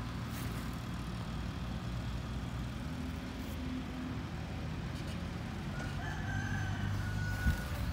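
Heavy machinery engine running low and steady, with a rooster crowing about six seconds in.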